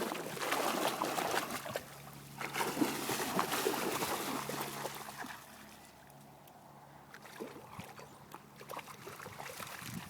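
Water splashing and trickling as dogs swim, loudest at first and fading after about five seconds, over a low steady motor hum.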